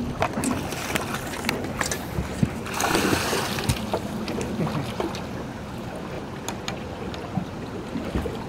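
Water splashing beside a small boat about three seconds in, over wind on the microphone and scattered clicks and knocks of fishing gear being handled.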